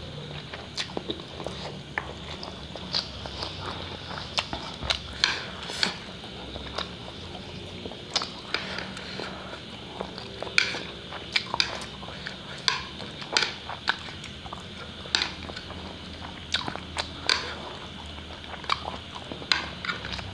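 Close-miked mouth sounds of a person eating spicy instant noodles with chopsticks: wet chewing and slurping, with many short sharp clicks and smacks scattered irregularly throughout.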